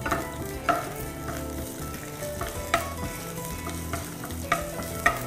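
Julienned ginger sizzling in hot oil in a nonstick frying pan, being stir-fried until fragrant. A wooden spatula stirs it and knocks sharply against the pan several times.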